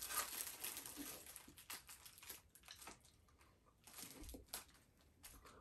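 Foil Pop-Tart wrapper crinkling faintly as it is handled, a run of short crackles that thins out after the first few seconds.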